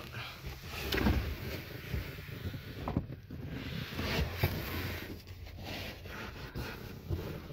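Rustling, scraping and handling knocks of a Toyota Camry's carpeted rear parcel-shelf trim panel being lifted off the rear deck, over a low steady background rumble.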